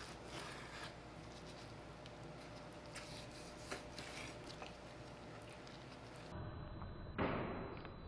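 A knife and fork cutting into a pork chop on a plate: faint scraping with a few light clicks of cutlery. A brief louder noise comes about seven seconds in.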